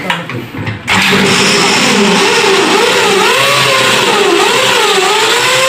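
Corded electric drill starting about a second in and running steadily, its motor whine wavering up and down in pitch.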